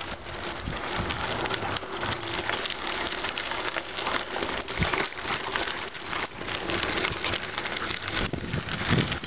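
Bicycle tyres rolling over a gravel road: a steady crunching crackle of loose stones, with many small ticks and rattles.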